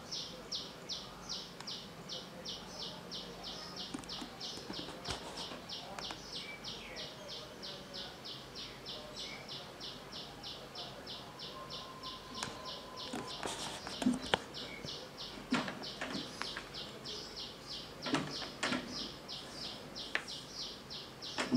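Steady, evenly paced high-pitched chirping, about three to four pulses a second, repeating without a break. In the second half there are a few light knocks.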